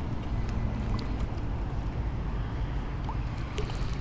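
Steady low outdoor rumble with a few faint clicks scattered through it.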